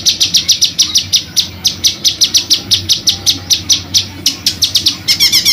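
Songbird song from a bird-song training recording: a rapid, even string of sharp, loud chirps, about six a second, breaking into a faster trill near the end. This is the 'roll tembak' (rolling rapid-fire) song of a bird the recording calls an 'African bird'.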